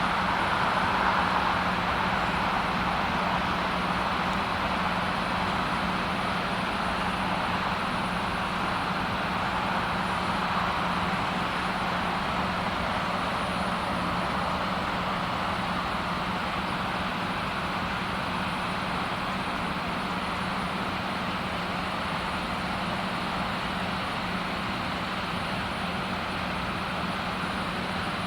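Steady vehicle running noise: an even rush with a constant low hum underneath, a little louder in the first few seconds, then level.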